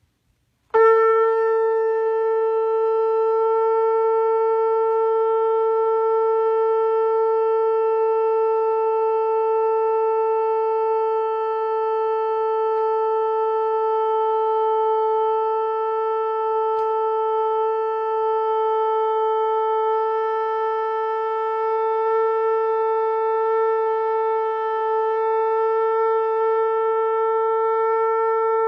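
Shofar blown in one long, unbroken note that starts about a second in and holds a single steady pitch with a bright stack of overtones.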